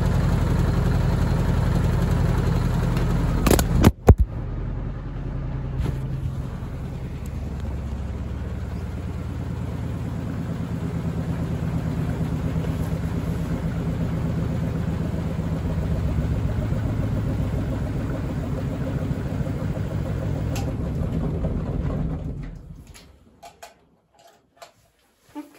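A machine running with a steady low hum. About four seconds in there is a sharp knock and the sound briefly drops; it then runs on, grows a little louder, and winds down to a stop near the end.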